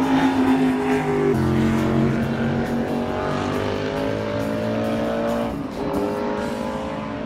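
Vintage open-wheel formula race car's engine running hard at speed. Its note drops suddenly about a second and a half in, then climbs steadily, drops again near six seconds and climbs once more.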